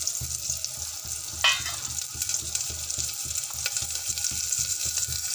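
Mustard seeds, curry leaves and onion sizzling and crackling in hot oil in an aluminium pot: the tempering (oggarane) for a sambar. A single sharper crack stands out about a second and a half in.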